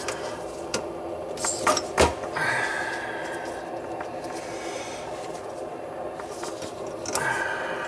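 Several sharp knocks and clunks of a hand tool and fittings being handled under a sink cabinet, the loudest about two seconds in, with a brief scraping rasp soon after and again near the end, over a steady low hum.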